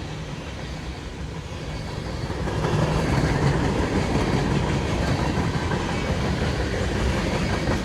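Freight train's railcars rolling past, steel wheels running over the rails in a steady stream of rumble and clatter. It grows louder about two and a half seconds in.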